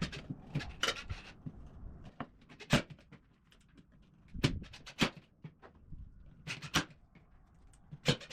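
Scattered sharp clicks and knocks, about a dozen at uneven intervals, from parts and hardware being handled during bird-feeder assembly.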